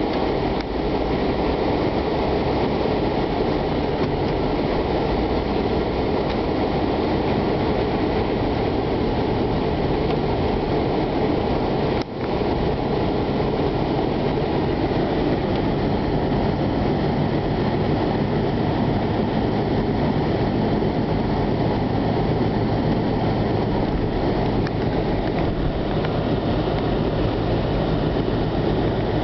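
Blizzard wind rushing and buffeting the microphone, a steady loud rumble that dips briefly about twelve seconds in.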